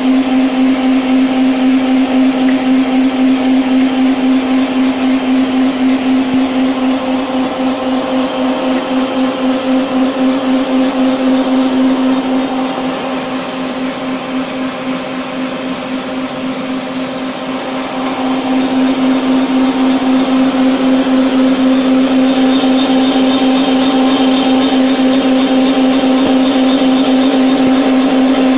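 Pet food processing line machinery running: electric motors hum loudly and steadily, with a slight regular pulsing. The hum drops in level for several seconds midway, then comes back up.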